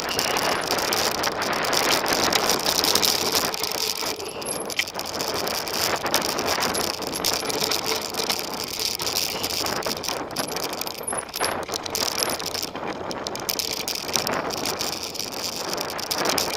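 Cube LTD Race mountain bike rattling and clattering continuously as it rides fast down a rough dirt trail, with tyre noise on the dirt and many short knocks from the bumps.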